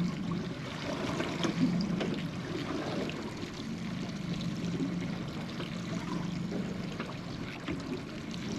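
Water sloshing and lapping against the hull of a small boat over a steady low hum, with a few small ticks.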